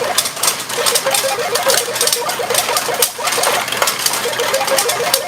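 Retro pachinko machine in play: steel balls clattering rapidly through the pins, with short electronic beeps repeating throughout.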